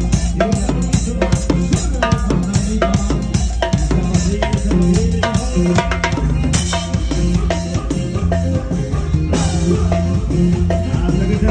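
Live band music: a drum kit keeps a fast, even beat over bass and keyboard, with cymbal crashes about six and a half seconds in and again about nine and a half seconds in.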